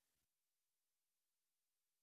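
Near silence, with no audible sound.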